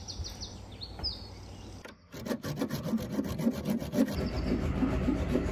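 A hand saw cutting through the rusty screws on a narrowboat's roof box, in quick rhythmic back-and-forth strokes that start about two seconds in. Small birds chirp before the sawing begins.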